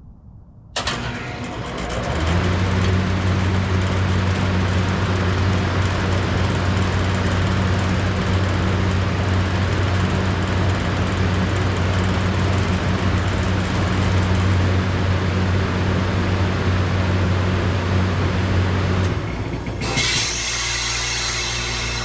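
A 1983 Whirlpool NCHBA 2.5-ton heat pump's outdoor unit starting up: the compressor and condenser fan kick on abruptly about a second in, the fan spins up, and the unit settles into a loud, steady run with a deep hum. Near the end the hum drops away and the sound turns hissier.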